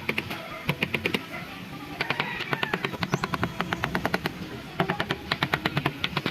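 Bursts of rapid sharp taps, about ten a second, stopping and starting, over a background song with singing.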